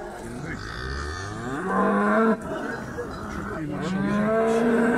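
Cows mooing: one long moo that rises in pitch and breaks off a little over two seconds in, then another long moo starting near the end.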